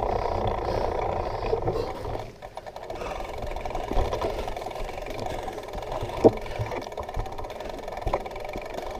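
Rumbling wind and handling noise on a moving camera while mountain bikes are pushed uphill on foot over leaf litter. The rumble drops about two seconds in, and a few sharp knocks follow, the loudest about six seconds in.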